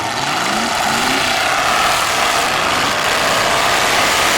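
Several demolition derby cars' engines running together, loud and steady, with engines revving up about a second in.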